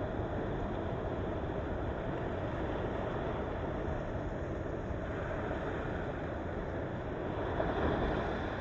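Sea waves washing in on the coast, a steady low rush of surf, with one wave swelling louder near the end.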